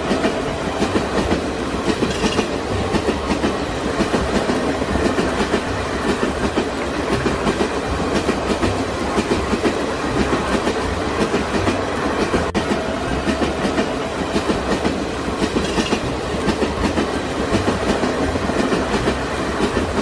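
Battery-powered toy steam train running around its plastic track: a steady, fast rattling clatter of its wheels and motor that goes on without a break.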